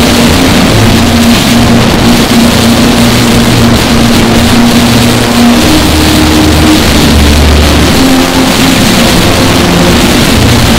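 Bagpipes deliberately overdriven into harsh, clipped distortion: a held chanter note that steps up in pitch about halfway through, over low steady drones, all very loud and buried in distortion noise.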